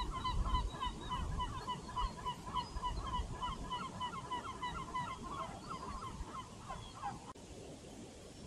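A flock of geese honking, many short calls overlapping several times a second over a low rumble. The honking cuts off abruptly about seven seconds in, leaving a faint steady background.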